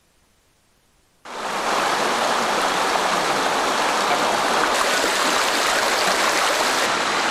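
Shallow mountain stream running over rocks, a steady wash of water noise. It starts abruptly about a second in, after near silence.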